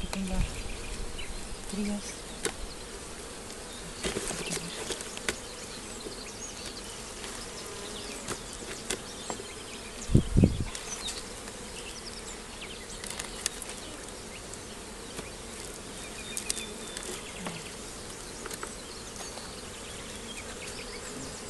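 Honeybee colony buzzing steadily around an opened hive, with scattered sharp clicks and knocks of wooden hive frames being handled and lifted out. A dull low thump about ten seconds in.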